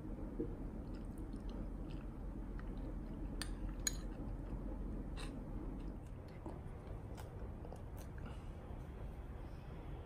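Close-up chewing and crunching of yogurt with granola, with a few sharp clicks, the loudest about four seconds in. It gets quieter after about six seconds.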